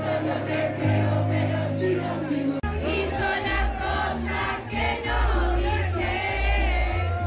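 Loud dance-party music with heavy bass notes and many voices singing along. About two and a half seconds in it cuts abruptly to another stretch of music.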